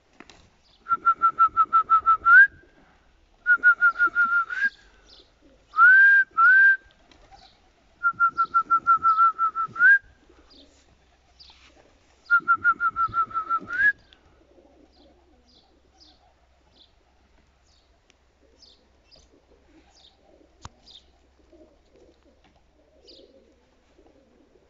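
A trilled whistle blown in loud bursts of about a second and a half, five of them with two short rising whistles in the middle, each trill ending in a quick upward slide: a pigeon fancier's whistle calling young pigeons down onto the loft. After the last burst, about fourteen seconds in, only faint scattered bird chirps remain.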